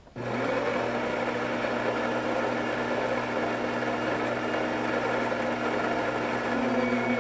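Bean-to-cup coffee machine's built-in grinder running steadily with a low hum and a gritty grinding noise, cutting off after about seven and a half seconds.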